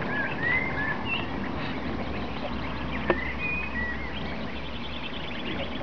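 Goslings peeping: a scatter of short, high calls, some gliding upward, over a steady outdoor hiss, with one sharp click about three seconds in.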